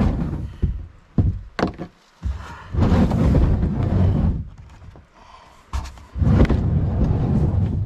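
Knocks and thumps carried through a plastic sit-in kayak's hull as the paddler climbs in and pushes off from rocks in the shallows, with low rumbling noise between them.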